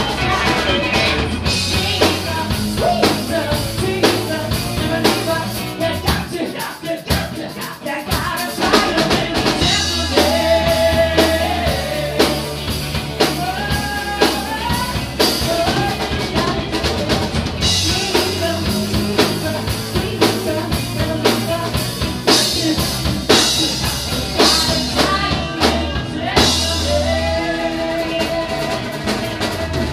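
Live rock band playing: a woman singing lead over electric guitar and a drum kit, with a steady low bass line. The band thins out briefly about six seconds in, then comes back in full.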